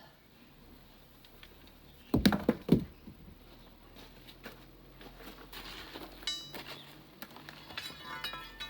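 Stones and pebbles knocking and clattering as they drop and tumble, with a burst of several loud knocks about two seconds in, then lighter clicks and ringing clinks near the end.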